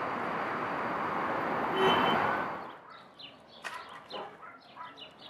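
Loud, even street noise that cuts off about two and a half seconds in. After that it is much quieter, with small birds chirping in short repeated calls.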